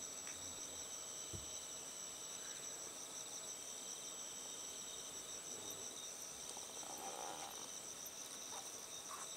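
Steady high-pitched chorus of crickets trilling, several insects at different pitches at once.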